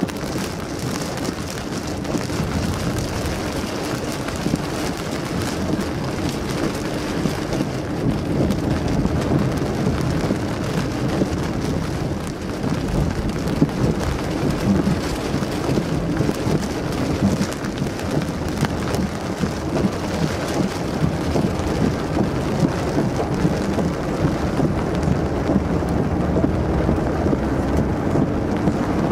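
Heavy rain pelting a car's windshield and roof, heard from inside the cabin as a dense patter of hits, over the low hum of the car driving.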